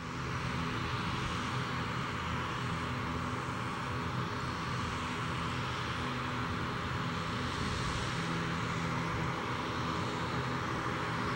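Airbus A320neo airliner on final approach, its Pratt & Whitney PW1100G geared turbofan engines at approach power: a steady jet rush with a low hum under it.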